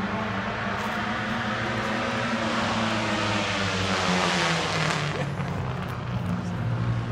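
Vintage race car engines running at speed on a road circuit. One car passes, its sound swelling to the loudest point about four seconds in and dropping off soon after, while a steady engine drone carries on underneath.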